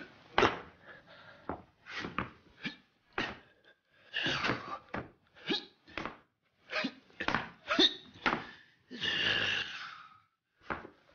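A man's short grunts, gasps and huffs of effort as he strains at a high kick, a dozen or so in quick succession. About nine seconds in comes one longer strained sound.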